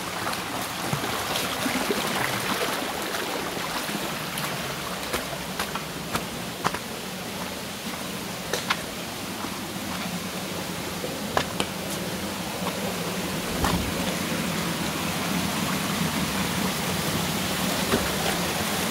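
Shallow rocky stream running over stones and small cascades: a steady rush of water that grows a little louder in the second half, with a few sharp clicks scattered through it.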